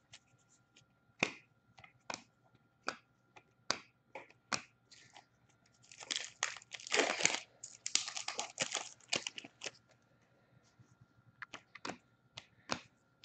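Hockey trading cards flicked off the stack one at a time, each giving a sharp snap, several seconds apart. From about six to ten seconds in there is a denser run of crinkling and tearing as a foil card pack is torn open.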